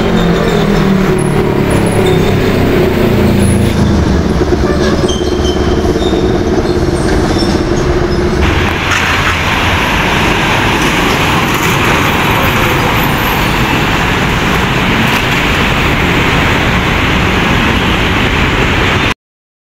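Heavy diesel tractor-trailer trucks passing close by with their engines running, amid road traffic. About eight seconds in the sound changes abruptly to a steadier traffic hiss, and it cuts off suddenly just before the end.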